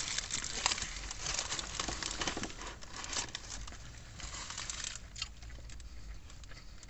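Paper burger wrappers crinkling and rustling as they are handled, with irregular crackles.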